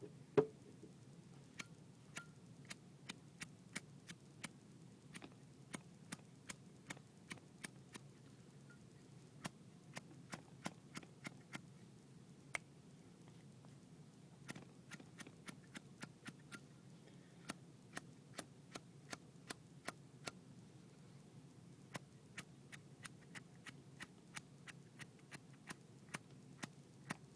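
Zippo lighter's flint wheel struck over and over: a long run of sharp clicks, one to three a second with short pauses. The lighter is filled with acetone nail polish remover, which is not catching from the spark.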